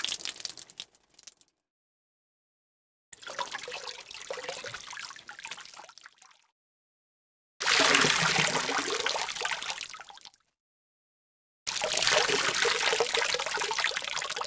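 A run of short water sound-effect clips: trickling and pouring water. The end of one clip fades out about a second in, then three more of about three seconds each follow, each starting and cutting off abruptly with dead silence between; the third is the loudest.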